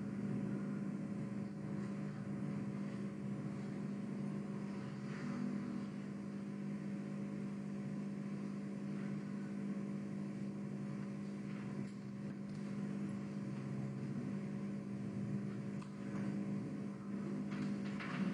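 A steady low hum made of several even tones, with a few faint brief sounds now and then.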